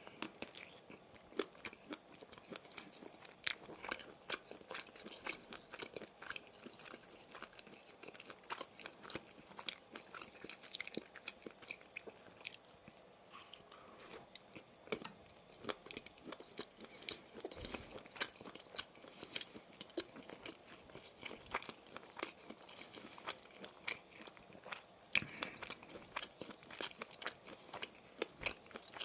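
Close-miked chewing and biting of sausage sticks: a steady run of irregular wet mouth clicks and soft crunches.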